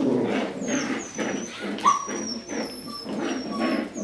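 Coton de Tulear puppies play-fighting, growling throughout, with a sharp yip about halfway through and short, high squeaks repeating.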